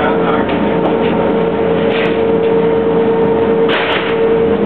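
Steady drone of a Boeing Jetfoil's gas-turbine propulsion heard inside the passenger cabin, with a constant whine over the noise and a short hiss about three-quarters of the way through.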